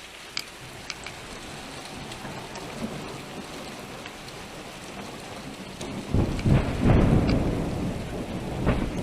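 Steady rain with a few sharp drop ticks, then about six seconds in a loud, low rumble of thunder rolls in and keeps going.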